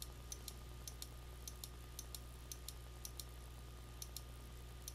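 Faint, irregular clicking at a computer, about three clicks a second, as satellite image frames are stepped through one by one, over a steady low electrical hum.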